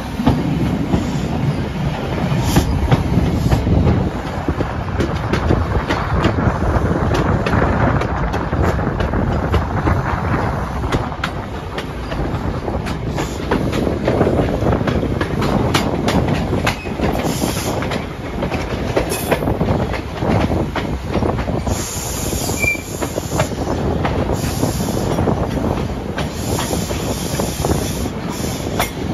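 Wheels of a High Speed Train set's Mark 3 coaches running over the track, with many sharp clicks over rail joints and pointwork and bouts of wheel squeal, heard from an open window of the moving train.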